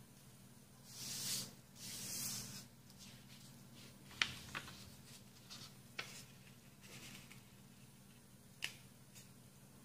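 A sheet of paper being handled while folding a paper airplane. Two soft rustling swishes come about a second in as the sheet is slid and turned over on the table, then a few sharp crackles and taps as the folds are pressed and creased flat.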